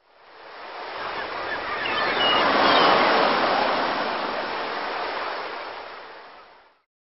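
A surf-like rush of water noise that swells to a peak about three seconds in and then fades away, with a few faint high chirps near the peak.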